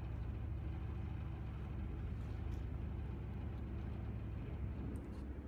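A steady, low engine hum over a faint hiss of background noise; the hum's note shifts slightly about four and a half seconds in.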